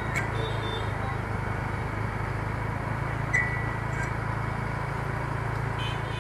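Motorbike engine running steadily under street traffic noise, with two brief sharp clicks about three seconds apart.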